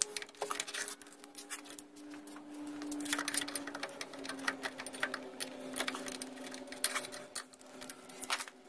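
Snap ring pliers clicking and scraping against the snap rings and metal bore inside an outboard gearcase: irregular small metal clicks and taps, over a steady low hum.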